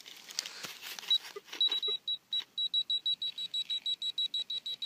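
Handheld metal-detecting pinpointer beeping in rapid short high pulses, about six a second, as its tip is held against a buried metal cable. The pulsing marks metal right at the probe tip: the wire in the cable, not a find. A few soft scrapes in the soil come before the beeping starts, about a second in.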